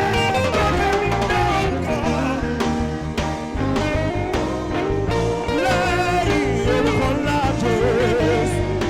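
Saxophone playing a slow gospel worship melody with wide vibrato over a live band with bass and drums. The bass drops out briefly partway through, then comes back in.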